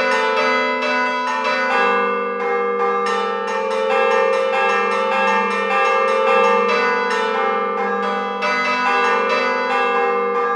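Church bells from a virtual sample library, played from a keyboard, ringing a fast continuous peal of about three or four strikes a second, each stroke ringing on into the next.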